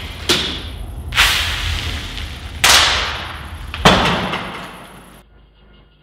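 Four loud, sharp cracks, each dying away in a long echoing tail, over a low hum; the sound fades out toward the end.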